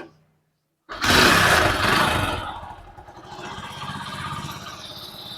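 Hero HF Deluxe's single-cylinder four-stroke engine kick-started: it fires about a second in, runs loud for a moment, then settles into a steady idle.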